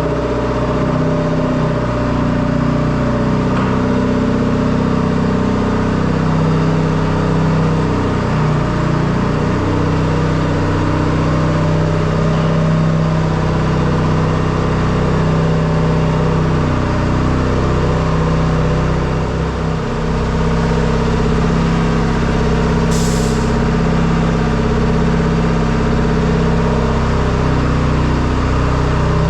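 Detroit Diesel 53-series two-stroke diesel engine running steadily at a fast idle, with a short sharp hiss of air about two-thirds of the way through.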